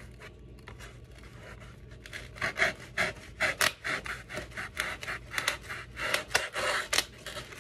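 Kitchen knife sawing through a green foam ring, a run of quick rasping back-and-forth strokes, about three a second, starting about two seconds in.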